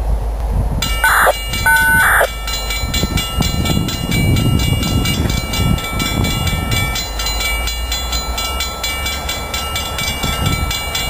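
CSX freight locomotive horn sounding two blasts about a second and two seconds in, the second longer, over a steady low rumble of wind on the microphone.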